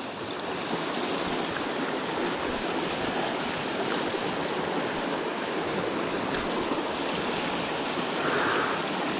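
A small mountain stream flowing steadily, an even rush of water with a single faint click about six seconds in.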